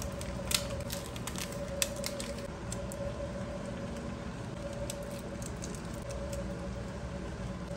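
A pan of milk and instant noodles simmering on a gas burner gives off irregular small pops and crackles, busier in the first few seconds. Under them runs a steady hum.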